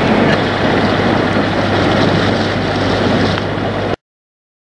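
Boat under way at sea: a steady engine hum under wind and rushing water, cutting off suddenly about four seconds in.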